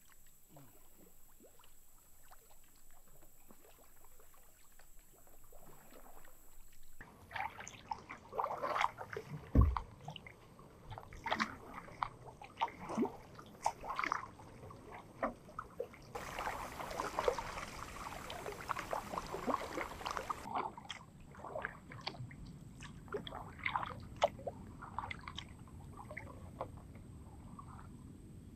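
Sea kayak paddle strokes in calm water: water dripping and trickling off the paddle blades and sloshing along the hull, faint for the first several seconds. There is a single thump about ten seconds in.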